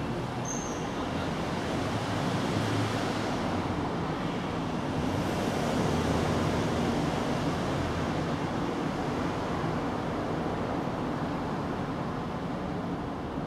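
Steady outdoor background rush of noise that swells and eases a couple of times, with one brief high chirp about half a second in.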